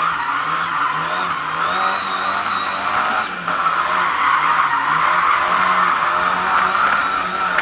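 Rally-prepared Lada 2101 heard from inside the cabin, its engine running hard and changing pitch as the car is driven through turns, with tyres squealing and skidding on the surface. A thin high squeal rises for about a second, around two seconds in.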